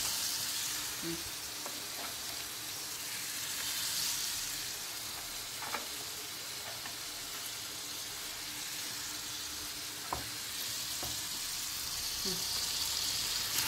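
Diced vegetables sizzling steadily in a frying pan, with a few brief knocks of a wooden spatula against the pan.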